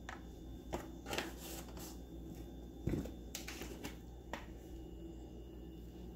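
Scattered light clicks, taps and rustles of kitchen things being handled, several in all and a little louder about three seconds in.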